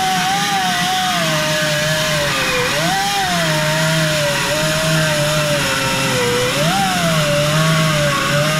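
Bauer corded die grinder with a grinding stone grinding out a hole in a sheet-metal truck bedside. Its motor whine wavers in pitch as it bogs under load, jumping up sharply twice, about three and seven seconds in, as the load eases.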